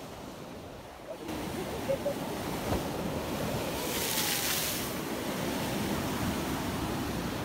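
Sea waves breaking and washing on the shore, a steady rushing that grows louder about a second in, with one wave's hiss swelling near the middle.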